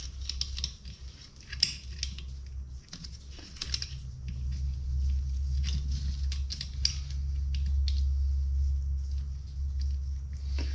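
Irregular light clicks and taps of small metal brake parts being handled, over a steady low hum that grows louder about four seconds in.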